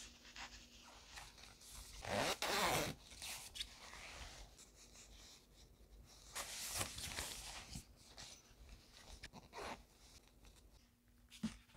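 Zipper of a nylon puffer tote bag being pulled open, the loudest and longest zip about two seconds in, followed by softer zip and fabric-handling sounds as hands work at the opening.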